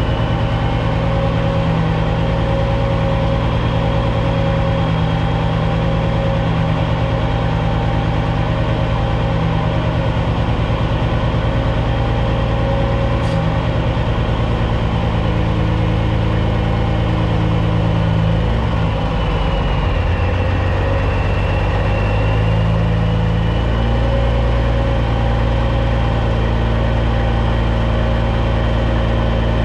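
Caterpillar C15 inline-six diesel of a 2006 Peterbilt 379 running at low revs while the truck reverses slowly with B-train trailers. The engine note dips and shifts briefly about nineteen seconds in, then settles steady again.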